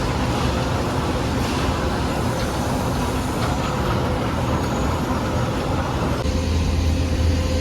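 Steady loud mechanical rumble with a constant droning hum, the sound of a large engine or heavy machinery running. About six seconds in the higher hiss falls away and the low rumble grows stronger.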